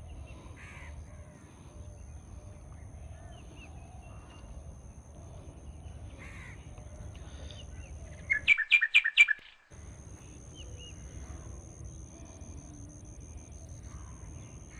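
Birds calling: faint scattered calls, then about two-thirds of the way through a loud run of about five quick, clear calls from a bird close by.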